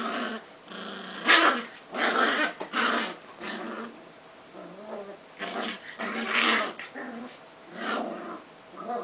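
Puppies play-fighting, with a string of short growls, the loudest about a second and a half in.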